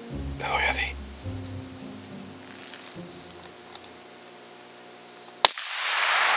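A single .22 rifle shot about five and a half seconds in: one sharp crack. A short rush of noise follows it, over a steady high-pitched whine.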